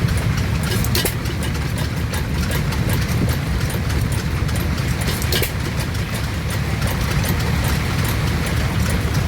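Vintage stationary engine running steadily at idle: a low rumble with scattered sharp clicks.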